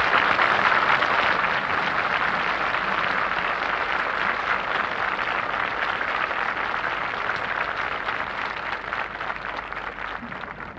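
Crowd applauding, a long even round of clapping that dies away near the end.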